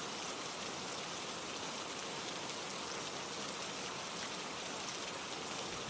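Steady rainfall, an even hiss of rain falling on a surface.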